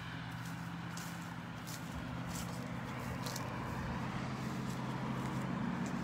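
A car approaching on the road, its engine and tyre noise growing gradually louder.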